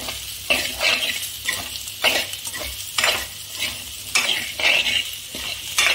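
Steel spoon stirring and scraping boiled baby potatoes with spices against a steel kadhai, in repeated strokes about two a second, over a steady sizzle of the potatoes frying in hot oil.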